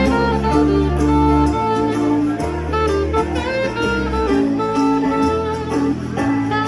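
Live band playing an instrumental passage: a melody of held notes over a steady bass line.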